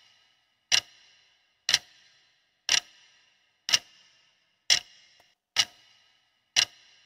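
Countdown-timer clock ticking sound effect, one sharp tick about every second, each with a short ring, counting down the time to answer a quiz question.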